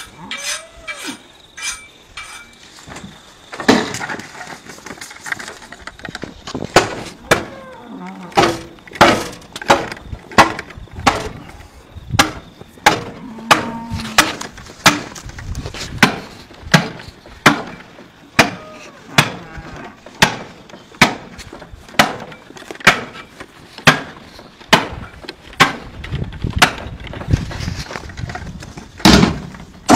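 A steady run of sharp knocks, evenly spaced at a little under one a second, with scattered lighter knocks and clatter before the run settles in.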